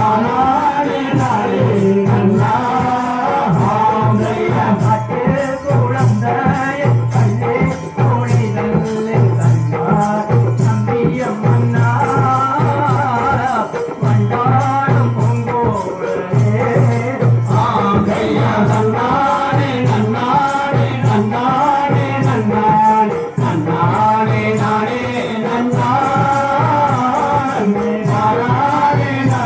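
Valli kummi folk music: voices singing a Tamil folk song over percussion keeping a steady beat of about one stroke a second.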